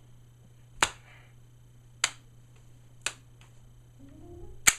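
Four sharp, separate clicks, about a second apart, from a cheap spring-powered M1911 airsoft pistol being worked in the hands.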